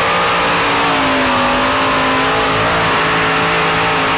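The engine of the Intertechno Lambada 3.5 ton modified pulling tractor runs loud and steady at full power under load during a full pull. Its pitch sags slightly about a second in, then holds.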